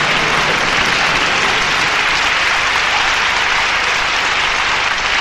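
Live theatre audience applauding, a steady even clapping throughout.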